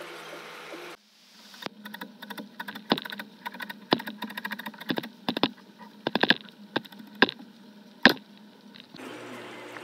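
A chef's knife chopping fresh coriander leaves on a white plastic cutting board: a run of sharp, irregular taps, a few a second, starting about a second in. It follows a brief steady background hum.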